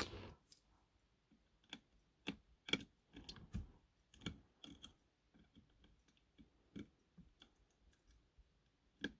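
Faint, irregular small clicks and taps of tweezers and a small screwdriver working tiny screws into a model locomotive's plastic buffer beam, about a dozen in all, most of them in the first half.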